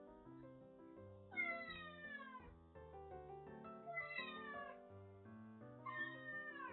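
A kitten meowing three times, each meow falling in pitch, over background music of steady held notes.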